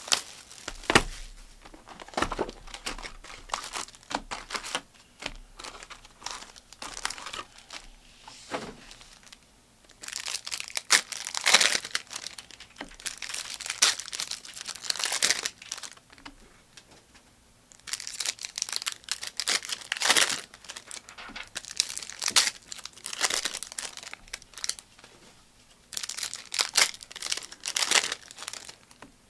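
Foil trading-card pack wrappers being torn open and crinkled by hand, in repeated bursts of crackling with quieter spells between.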